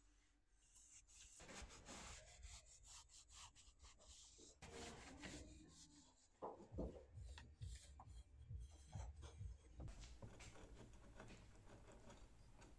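Faint rubbing of a cloth rag wiped back and forth along painted sheet-metal edges, cleaning them, with a few light knocks in the middle.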